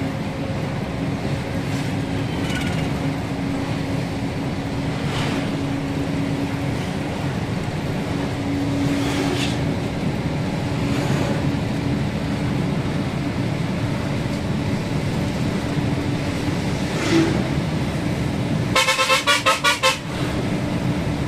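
Lorry driving on the highway: steady engine and road noise with a constant low hum. Near the end comes a rapid stuttering string of horn toots lasting about a second.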